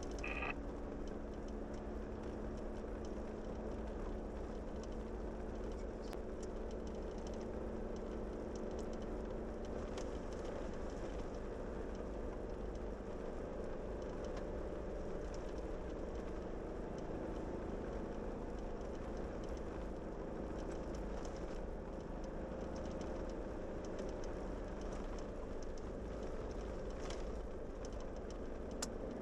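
A vehicle's engine and tyres running steadily on a paved highway, with a few faint ticks.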